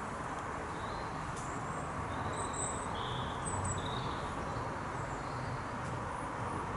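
Outdoor garden ambience: a steady background hiss with small birds chirping briefly now and then.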